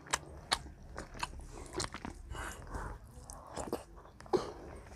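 Close-up mouth sounds of a child eating water-soaked rice by hand: irregular wet chewing and lip-smacking clicks, with one sharper click about four seconds in.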